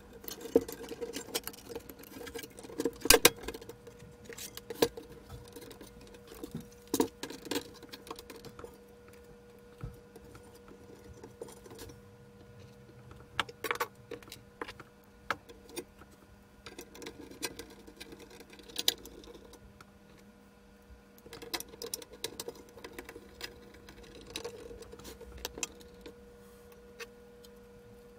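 Plastic and metal parts of an opened CD player's chassis and tray loading mechanism being handled and fitted: irregular clicks and taps with quieter rustling between them, over a faint steady hum. The loudest clicks come about three seconds in and again near seven, fourteen and nineteen seconds.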